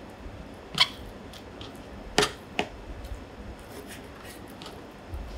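Kitchen knife cutting raw chicken thighs on a cutting board, with a few sharp taps of the blade against the board, the loudest about two seconds in.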